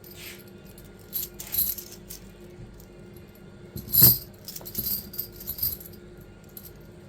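Heavy solid gold belcher chain clinking and jangling as it is handled: scattered metallic clinks of the thick solid links, with one louder, heavier knock about four seconds in.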